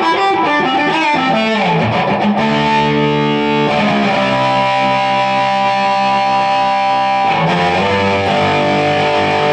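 A Fender Stratocaster electric guitar played through an amplifier in one of its newly wired out-of-phase in-between pickup positions. Bent, wavering notes give way to long ringing chords, which change about two and a half seconds in and again near the end.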